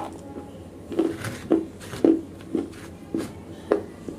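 Close-miked chewing of wet black slate pieces: short, wet crunches repeating roughly twice a second.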